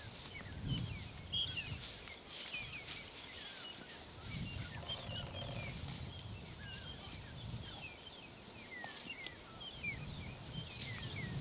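Small birds chirping and calling, many short quick notes overlapping throughout, with a low rumble that swells and fades underneath.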